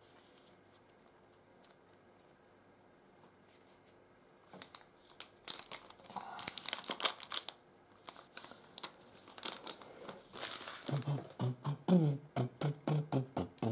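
Foil trading-card pack being torn open and crinkled by hand, in bursts of rustling that start about four seconds in. A low voice comes in near the end.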